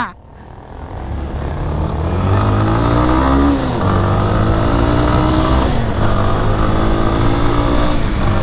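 Yamaha Fazer 250 single-cylinder motorcycle engine accelerating from low speed, revving up and shifting up twice, once about three and a half seconds in and again near six seconds, with wind noise over the microphone.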